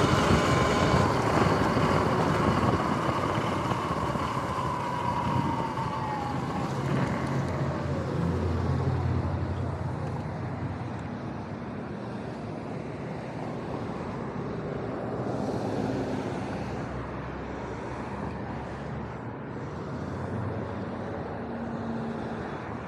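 Sur-Ron Light Bee X electric dirt bike's motor whine falling slowly in pitch as the bike slows to a stop, with tyre and wind noise. It gives way to passing road traffic, with a low hum from vehicles going by about a third of the way in and again later.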